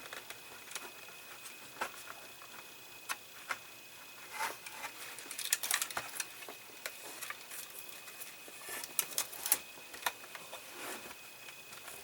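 Scattered light clicks and ticks of plastic model-kit parts and wiring being handled and routed, with a denser cluster of sharper clicks around the middle and another near the end.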